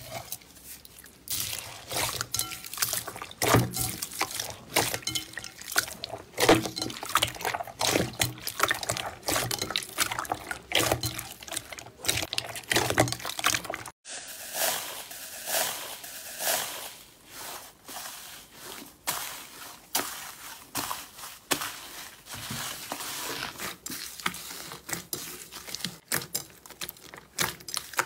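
Slime being squeezed and worked by hand: a dense run of wet squelches and small sticky pops. About halfway through it changes to finer, quieter clicking and crackling.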